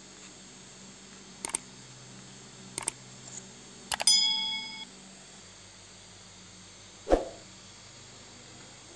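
Sound effects of a like-and-subscribe button animation: mouse clicks about a second and a half in and just before three seconds, then a click and a bell ding about four seconds in that rings for under a second. A short whoosh follows about seven seconds in.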